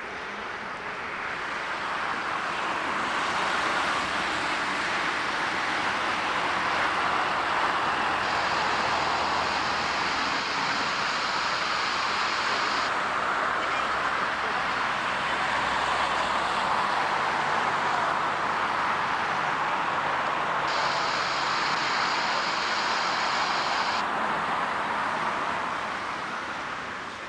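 Jet airliner engines passing: a broad roar that swells over a few seconds, holds, then fades away near the end.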